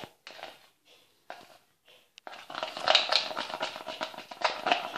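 Crinkling, rustling handling noise made of many small clicks. It starts about two seconds in, after a near-quiet start.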